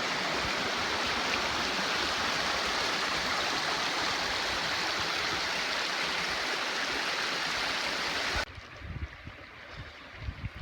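Steady rush of water pouring down a small natural water slide of rapids between two lakes. About eight and a half seconds in it cuts off suddenly, leaving a much quieter background with a few low thumps.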